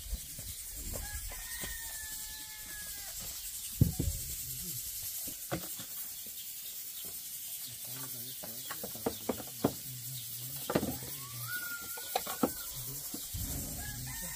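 Split firewood logs knocking against each other and against the hearth's concrete as they are laid in by hand: a scatter of sharp wooden knocks, the loudest about four seconds in. A rooster crows twice in the background, once early and again near the end.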